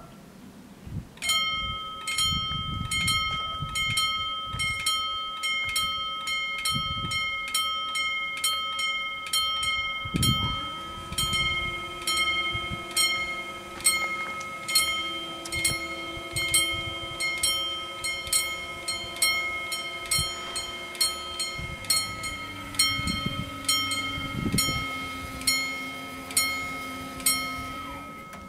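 Two bells of an Italian TD 96/2 level crossing ringing in a steady rhythm of about two strokes a second, starting about a second in: the crossing warning before a train. From about ten seconds in, the barrier motors hum as the striped booms lower, stopping shortly before the end.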